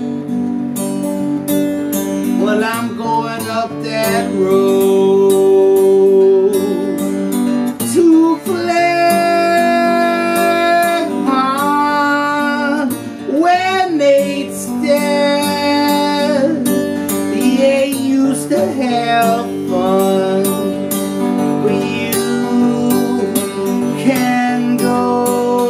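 An acoustic guitar strummed steadily, with a man singing long, held notes over it.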